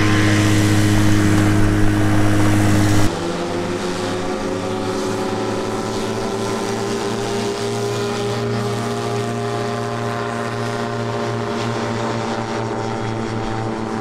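Microlight aircraft propeller engine running steadily. About three seconds in the sound changes abruptly to a slightly quieter engine tone that slowly rises in pitch.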